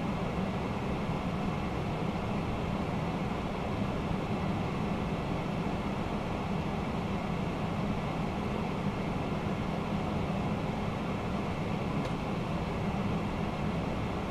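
Steady flight-deck noise of a Boeing 767-300ER in the climb after takeoff: rushing airflow and a low, even hum from the engines and cockpit ventilation.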